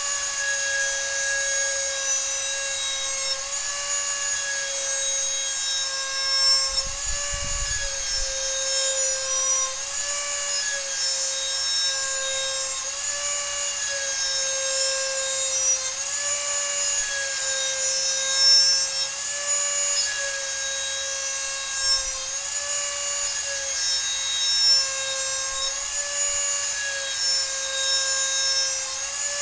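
Dremel rotary tool running at high speed and grinding along the edge of a lawn mower blade to sharpen it. A steady high whine whose pitch sags briefly every second or two as the tool is pressed against the steel and drawn along.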